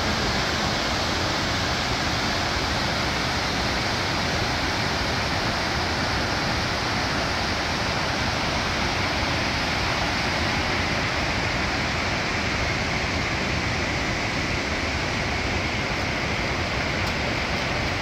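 Whitewater rapids of a mountain river rushing steadily below, a constant, even roar of water.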